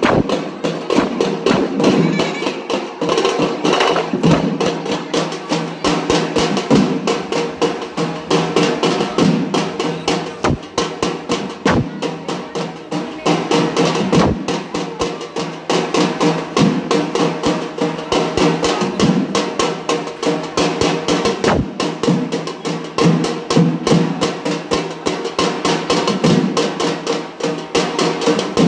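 Loud dance music with a fast, steady drum beat.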